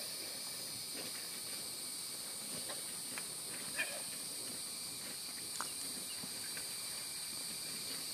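Steady, high insect chorus, with a few faint short scuffs from a downed feral hog kicking in the sand in its death throes.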